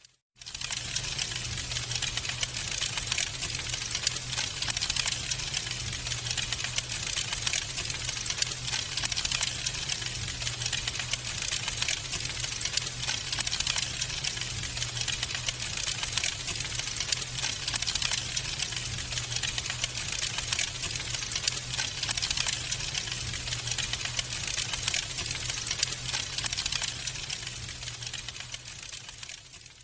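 Wood fire crackling in a fireplace: a dense, continuous run of small crackles with occasional louder pops, over a low steady hum. The sound cuts out briefly at the very start and fades out near the end.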